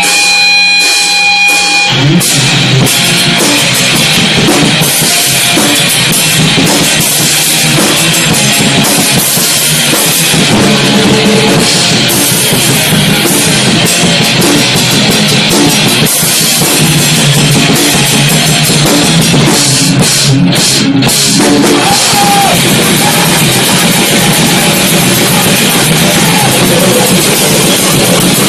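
Loud rock music played by a band on drum kit and electric guitar; after a couple of seconds of held guitar notes the full band with drums comes in.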